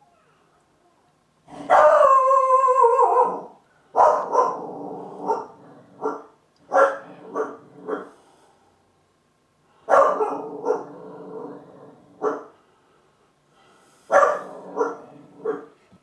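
A dog barking loudly: one long drawn-out call that drops in pitch at its end, then four bursts of quick sharp barks.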